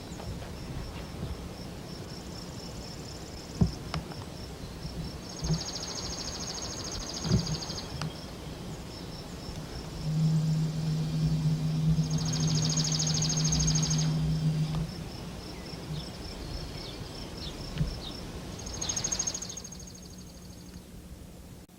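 Insects trilling in a steady high drone, with three louder buzzing bursts of a second or two each. A low steady hum runs for a few seconds midway, and there are a few faint knocks.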